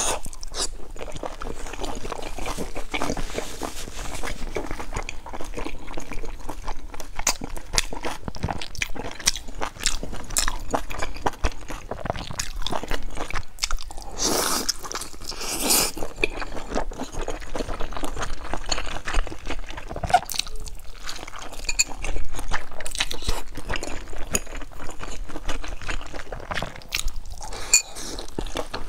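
Close-miked chewing and biting of a stuffed steamed bun, with a steady run of wet mouth clicks and smacks. There is a louder noisy stretch about halfway through.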